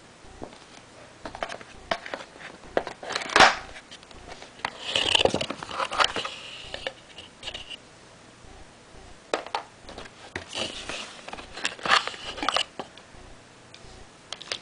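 Cardboard box and packaging being handled as a router is unpacked: scattered taps, knocks and scrapes of cardboard, with two spells of rustling and crinkling, one about a third of the way in and one about two-thirds in.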